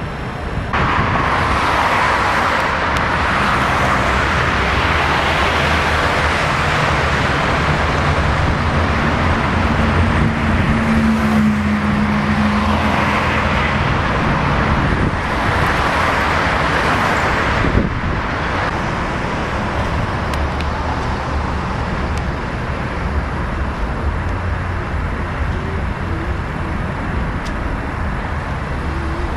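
Steady city street traffic noise, with the low hum of a vehicle engine through the middle. The noise drops suddenly a little past halfway and carries on quieter.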